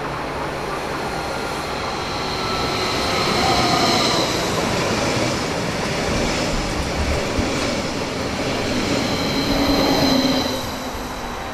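Eurobahn electric multiple unit running along the platform close by: rail and wheel noise with a steady high whine. It grows louder as the train draws alongside and falls away near the end as the last car passes.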